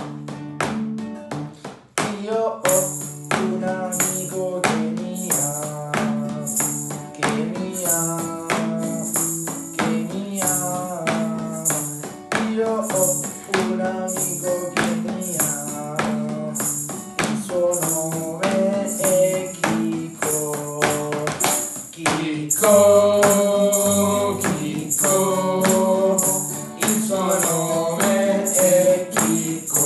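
Acoustic guitar strummed in a steady rhythm, joined after a couple of seconds by casual male group singing and a rhythmic egg shaker. The singing grows fuller and louder about two-thirds of the way through.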